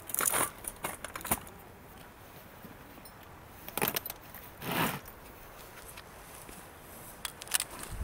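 Scattered small handling noises: a quick run of light clicks and rustles in the first second and a half, two short breathy rustling bursts around the middle and a lone click late on, over faint outdoor hiss.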